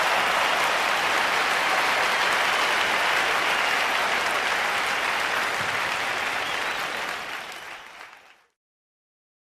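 Large crowd applauding, a dense steady clapping that fades out over the last couple of seconds to dead silence.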